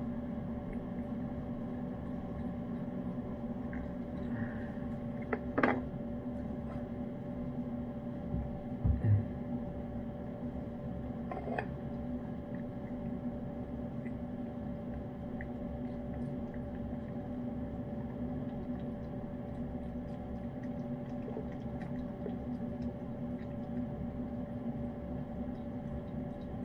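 A cat eating wet cat food from a ceramic dish, with faint small ticks of chewing and licking over a steady background hum. The dish clinks sharply twice, about six and twelve seconds in, and there is a low thud a little before nine seconds.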